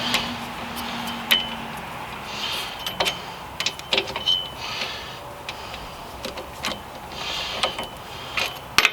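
Ratchet with a 13 mm socket clicking in repeated short bursts of strokes, with sharp metallic clicks, loosening a rear hub assembly mounting bolt. A steady low hum fades out in the first two seconds.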